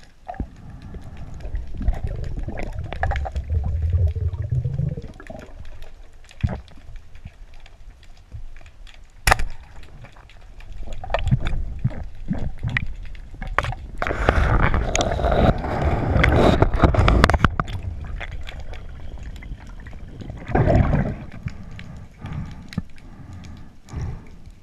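Underwater gurgling and bubbling of water against a GoPro housing, with scattered knocks. There is a sharp click about nine seconds in, and a louder stretch of rushing bubbles just past the middle.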